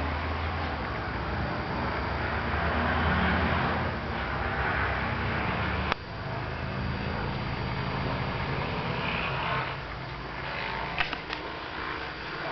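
A steady low mechanical rumble, with one sharp click about six seconds in and a few light clicks near the end.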